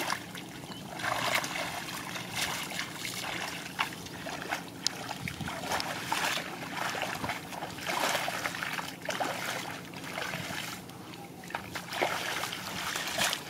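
Bare feet treading through a shallow muddy puddle: irregular sloshing and splashing of muddy water, with a few sharp splats.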